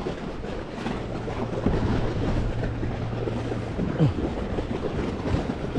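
Wind buffeting the microphone over the steady low hum of a boat engine on the water. A short knock comes about four seconds in.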